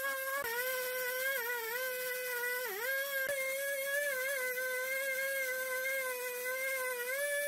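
Husqvarna two-stroke chainsaw running at high speed while cutting into a tree stump, its steady high whine sagging briefly in pitch twice in the first few seconds as the chain bites into the wood.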